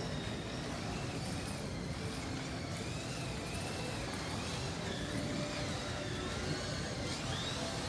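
Model race cars' small motors whining as they lap the track, the pitch rising and falling, over a steady background din.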